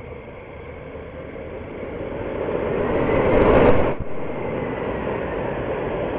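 Boeing 747's four jet engines roaring at takeoff power as it rolls down the runway. The roar swells over about four seconds, drops abruptly, then holds steady.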